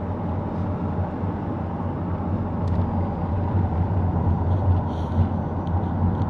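Steady low rumble of a car on the move: engine and tyre noise.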